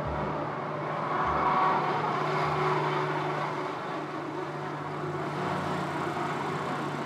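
Old electric rack-railway railcar of the Stuttgart Zahnradbahn running: a steady hum under rumbling running noise that swells about a second and a half in, with a few low thumps in the first three seconds.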